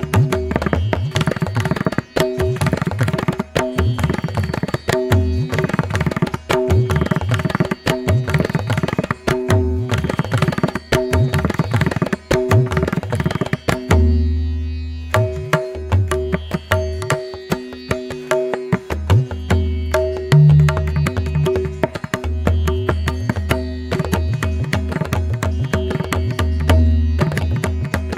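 Indian-style background music: rapid drum strokes over a steady held drone, with a brief break in the drumming about halfway through.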